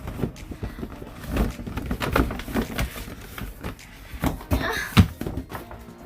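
A gift box and its packaging being handled and opened: a run of knocks, taps and rustles, with one sharp knock about five seconds in.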